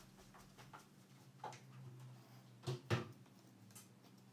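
Faint handling sounds of a replacement battery cell being set into a MacBook's aluminium bottom case: light taps and rustles, with two sharper knocks close together about three seconds in.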